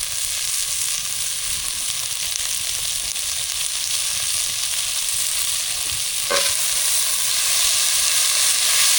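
Sliced vegetables sizzling steadily in oil in a pan over a campfire, with a single sharp knock about six seconds in.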